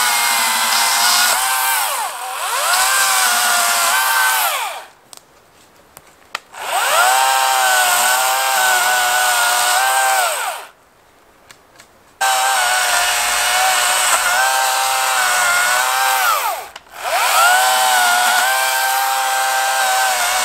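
Battery-powered chainsaw trimming branch stubs off a log. Its motor whine rises as the trigger is squeezed, holds steady through the cut, and drops away on release. It does this in several runs with two short pauses of a second or two between them.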